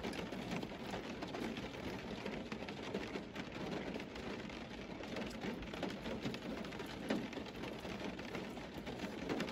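Close-up chewing of a chicken wing: a steady run of wet, crackly mouth clicks and smacks.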